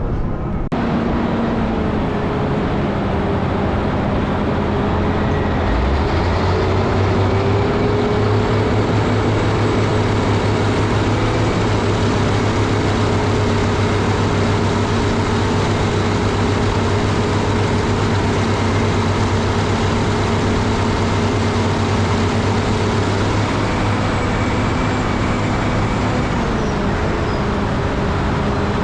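Caterpillar 637C scraper's diesel engine running steadily under load, with a slight shift in pitch about six seconds in and again near the end.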